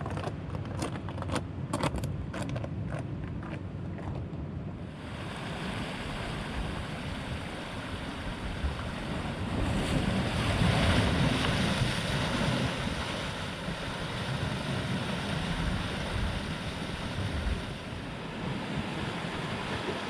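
A quick run of sharp clicks or taps for the first few seconds, then steady sea surf and wind buffeting the microphone, swelling for a couple of seconds around ten seconds in.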